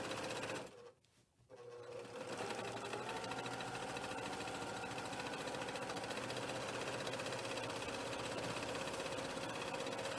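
Brother PQ1500SL single-needle straight-stitch sewing machine running fast, its needle stitching steadily through a quilt sandwich during free-motion quilting. About a second in it stops briefly, then starts again with a rising whine as it picks back up to speed.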